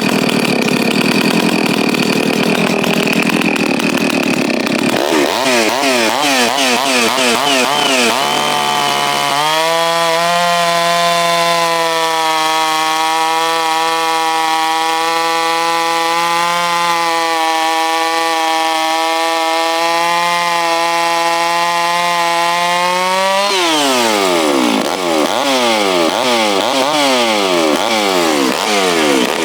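Freshly rebuilt Stihl MS660 (066) two-stroke chainsaw running. It revs up and down quickly, holds a steady high speed for about fourteen seconds, then is blipped up and down again repeatedly.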